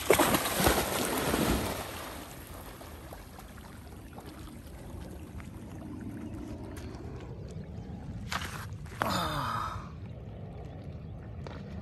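A Labrador splashing into shallow water at a run, loudest in the first two seconds, then a steady low rushing of water and wind as it swims away. About nine seconds in, a short breathy human voice falls in pitch.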